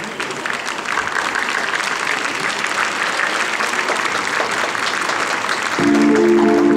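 Audience applauding, the clapping building up. About six seconds in, rumba music starts with sustained chords over the applause.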